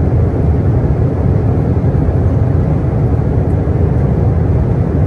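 Steady low roar of a Boeing 777-300ER's engines heard inside the passenger cabin.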